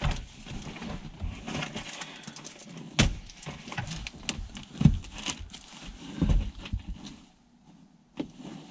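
Old seat cover being pulled and worked off a car seat by hand: fabric and vinyl rustling and scraping, with several knocks, the loudest about three, five and six seconds in.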